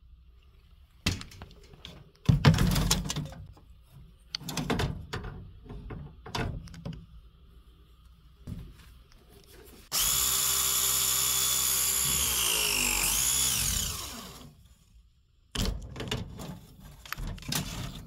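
Battery-powered press tool crimping a 1/2-inch copper press fitting: its motor runs steadily for about four seconds, the pitch sagging toward the end as the jaws close under load, then winds down. Before it come knocks and clatter as the jaw is set onto the fitting.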